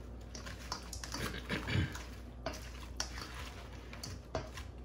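Metal spoon stirring fried shrimp through a creamy mayonnaise sauce in a stainless steel bowl: faint wet squelching with light scrapes and clicks of the spoon against the bowl.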